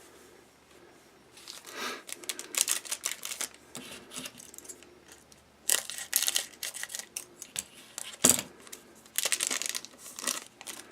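Trading-card pack wrapper being opened and handled: irregular crinkling and rustling bursts as the foil pack is worked and the cards slid out, with one sharp snap about eight seconds in.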